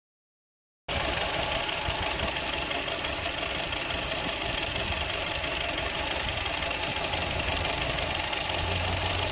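The 2.4-litre four-cylinder engine of a 2002 Honda CR-V idling, running roughly with an unstable idle that is being diagnosed. It cuts in suddenly about a second in after silence and runs steadily.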